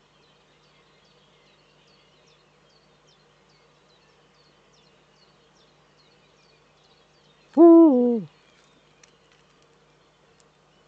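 Eurasian eagle-owl male giving a single short, deep hoot about seven and a half seconds in, the note stepping down and falling away at its end; a courtship call.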